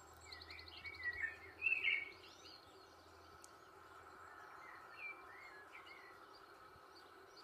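Small birds chirping and calling over a faint steady hum, played back as the soundtrack of a documentary on a television. A quick trill comes near the start, and the loudest burst of chirps comes about two seconds in. A few softer calls follow about five seconds in.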